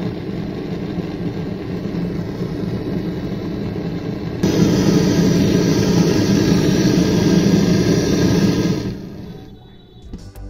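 Gas torch flame blowing steadily on a small brass piece as it is heated to red heat; the flame noise gets louder about four seconds in and dies away near the end.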